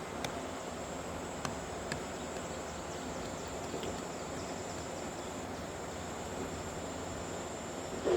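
Bulldozer's diesel engine running with a steady rumble, under a constant high insect drone and a few light clicks in the first two seconds.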